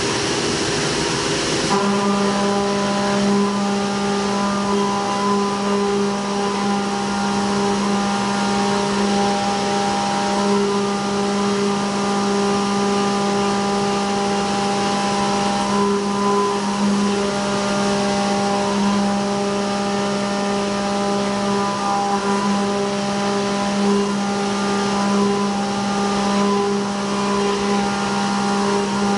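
CNC mill end mill cutting a pocket under flood coolant: a steady, loud pitched cutting tone over the hiss of the coolant spray. The pitch of the tone shifts about two seconds in.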